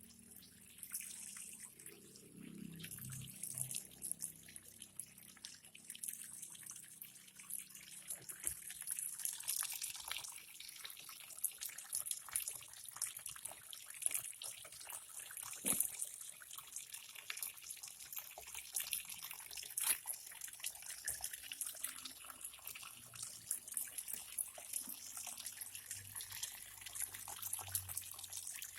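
Tap water running into the wash tub of an LG 12 kg twin-tub washing machine as it fills: a steady splashing hiss with scattered small clicks.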